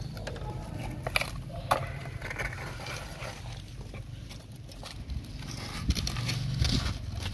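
Diesel engine of heavy earth-moving machinery running low and steady, with a few sharp knocks.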